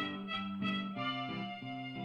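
Background instrumental music: a melody of short notes that settles into a longer held note near the end.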